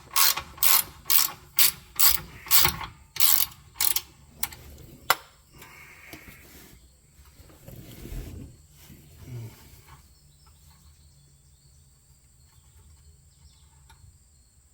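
Hand ratchet wrench clicking about twice a second as a bolt on the torque arm mount is turned. The clicking stops about four seconds in, followed by a single sharp click and a few softer handling sounds.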